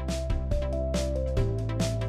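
Background electronic music with a steady beat, a bass line and held synth notes.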